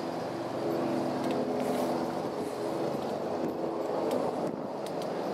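Urban street traffic: a steady hum of passing vehicles, with an engine note coming and going.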